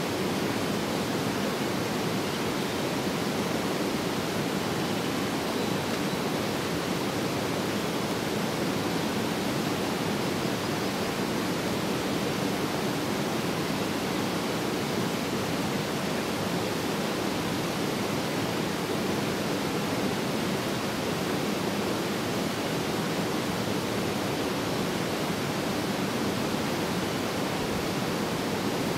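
A waterfall rushing steadily, an even wash of water noise with no breaks or changes.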